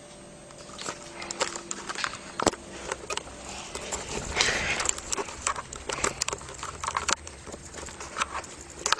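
Scattered small clicks, taps and rustles at an irregular pace, with a brief rustle about four and a half seconds in.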